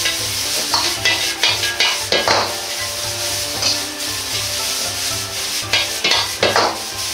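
Bean sprouts and carrots sizzling in a wok over high heat, with a metal ladle scraping and clanking against the pan at irregular intervals as they are stir-fried and tossed.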